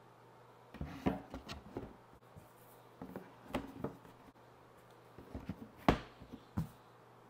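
Thick cardboard game boards being set down in a cardboard box and pressed flat by hand: three short clusters of soft knocks and taps, the sharpest about six seconds in.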